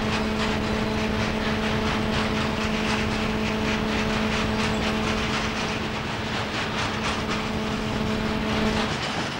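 Class 56 diesel locomotive hauling a freight train of box wagons past, its engine giving a steady hum of several held notes that stops near the end, over the rumble and rapid clacking of the wagons' wheels on the rails.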